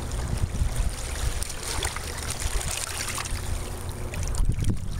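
Shallow water splashing and trickling around hands holding a large walleye in the water to release it, over a low steady rumble.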